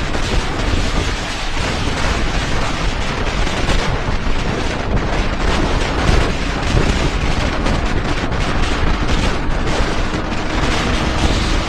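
Heavy wind rushing and buffeting over the microphone of a motorcycle riding at speed, with the engine running beneath it.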